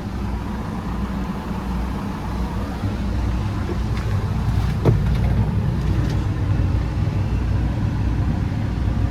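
John Deere 160G LC excavator's 4.5-litre diesel engine idling steadily, heard from inside the cab, with a single sharp click about five seconds in.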